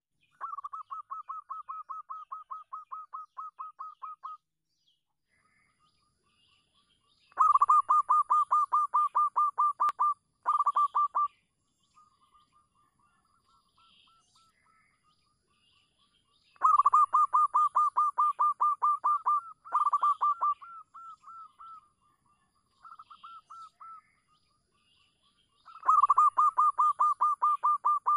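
Zebra dove calling: rapid runs of short, evenly repeated cooing notes, about five a second, in bursts of one to four seconds with pauses between, some bursts much louder than others.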